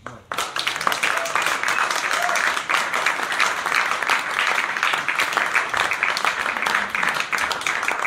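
Audience applauding, breaking out suddenly just after the start out of near silence and then holding steady as dense clapping.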